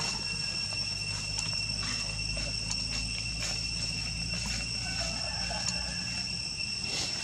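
Steady insect chirring at two high pitches, with faint scattered rustles of dry leaves as a macaque steps through the leaf litter.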